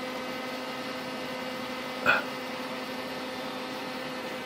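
A steady mechanical hum, with one short sharp sound about two seconds in.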